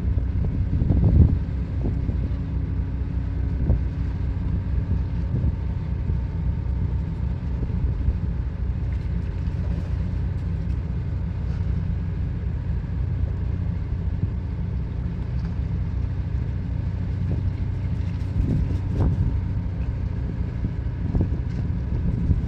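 A ship's engine running steadily, a low even drone, with a couple of brief knocks, one about a second in and one near the end.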